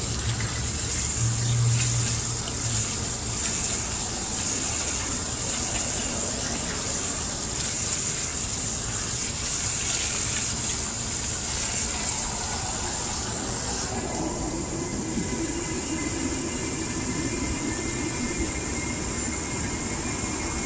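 Water running from an outdoor tap and splashing steadily. About two-thirds of the way in the sound changes as the water fills a plastic jug.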